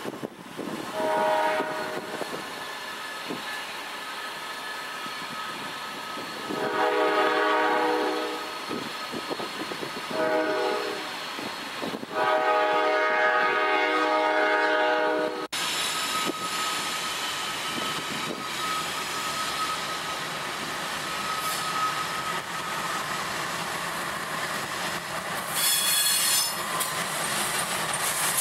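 Norfolk Southern freight locomotive's horn sounding four blasts as the train nears a grade crossing, the last a short one followed by a long one, the crossing warning. Then the train's locomotives and cars rolling past with steady rail noise, and a brief high squeal near the end.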